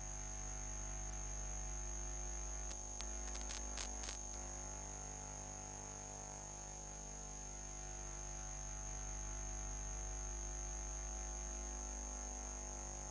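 Steady electrical hum with a high-pitched whine over it, and a short cluster of sharp clicks about three to four seconds in.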